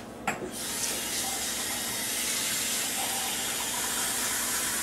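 Kitchen tap running steadily through a water filter into a measuring cup, starting just after a short click about half a second in.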